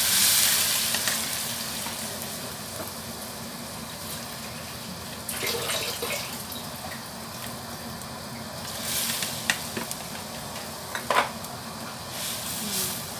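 Coconut milk poured into a hot wok of simmering vegetable curry, hissing loudly as it hits, then a steady bubbling sizzle. A metal spoon clinks against the wok a few times as the curry is stirred.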